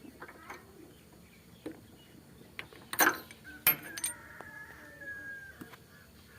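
Sharp metallic clinks of hand tools at the motorcycle's spark plug, two loud ones about three seconds in among lighter knocks. After them a steady high tone holds for about a second and a half.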